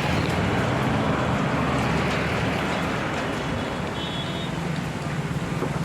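Road traffic: several vehicle engines running with a steady rush of noise over them. A brief faint high tone sounds about four seconds in.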